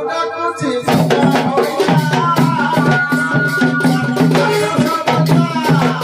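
Live Odia folk music from a Danda Nacha troupe. Double-headed barrel drums are beaten in a quick rhythm under a sung melody, over a low steady drone.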